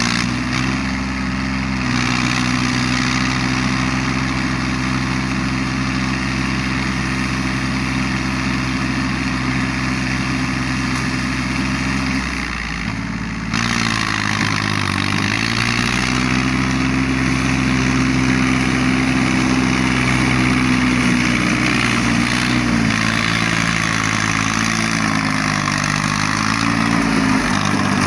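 Yanmar YM3000 tractor's three-cylinder 3T84 diesel running steadily under load while driving a round baler. About halfway through, the engine speed sags briefly and recovers.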